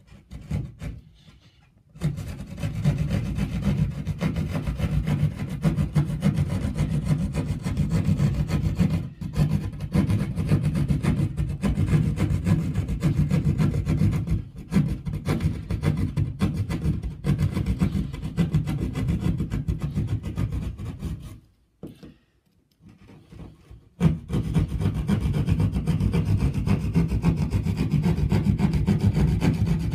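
Hand pad saw cutting through plasterboard with quick rasping strokes. It starts about two seconds in, stops for a couple of seconds about two-thirds of the way through, then carries on.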